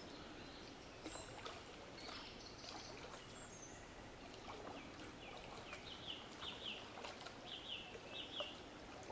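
Faint water sounds of a single wooden paddle dipping and pulling beside a coracle (River Boyne curragh) on a slow river. A bird sings a run of short repeated notes in the second half.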